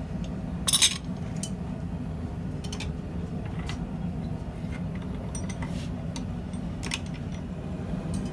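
Steel hand tools clanking against a steel bench vise and bar: a sharp metallic clatter about a second in, then a few lighter clinks, over a steady low hum.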